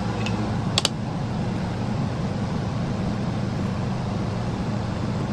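Air conditioner running with a steady hum, and one sharp click a little under a second in.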